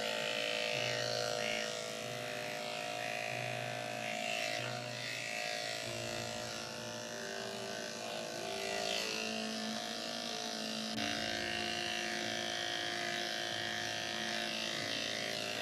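Electric dog-grooming clippers running with a steady hum as they shave a matted coat off a dog's legs.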